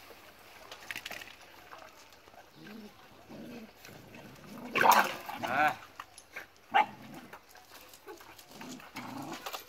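Dogs of a large pack feeding together from pans, with a short burst of dog vocalising about five seconds in and a single sharp yelp just before seven seconds.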